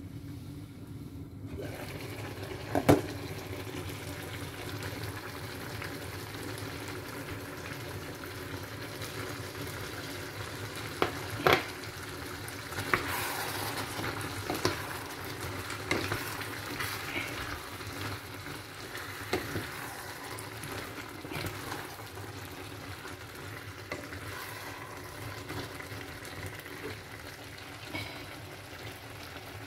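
A pot of ground beef, potatoes and kidney beans sizzling on the hob, starting about a second and a half in, while a wooden spoon stirs it and knocks against the stainless-steel pot now and then.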